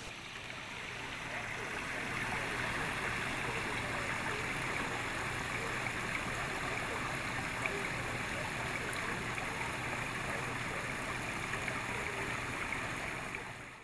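Steady rush of water running in a rock-edged garden pond's water feature. It fades in over the first two seconds and cuts off at the end.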